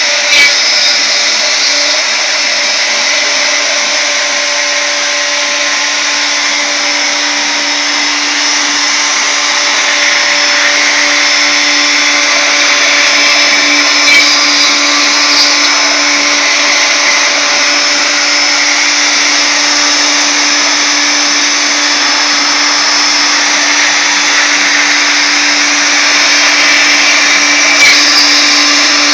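Wood router motor on a CNC router running at steady high speed, a 1/8-inch ball-nose bit taking a light finishing pass through the wood: a steady hum under a high whine and hiss. A few brief knocks come near the start, about halfway and near the end.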